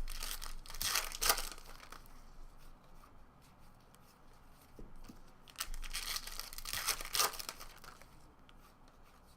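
Wrapper of a trading-card pack being torn open and crinkled, in two bursts: one at the start and another about six seconds in.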